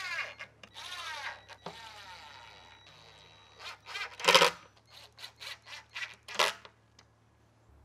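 Cordless drill-driver driving screws into wooden bench slats: a motor whine whose pitch bends as a screw runs in, then a string of short trigger bursts seating screws, the loudest about four seconds in.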